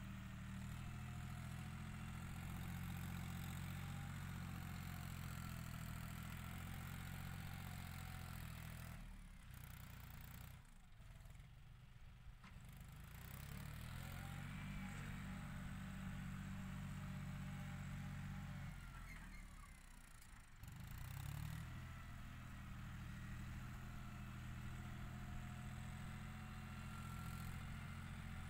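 John Deere 5045 tractor's three-cylinder diesel engine running under load as it pushes soil into a paddy bund. Its low, steady drone drops away twice, about a third of the way in and again about two-thirds in, then comes back.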